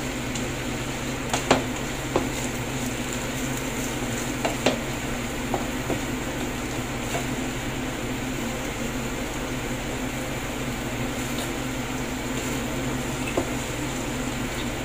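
Squash and vegetables sizzling in sauce in a nonstick frying pan, stirred with a wooden spoon that knocks against the pan a few times in the first five seconds, over a steady low hum.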